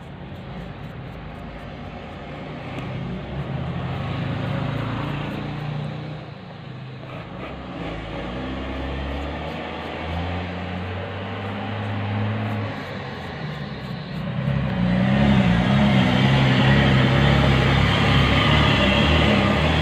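An engine running, a steady hum that shifts in pitch now and then and gets louder near the end.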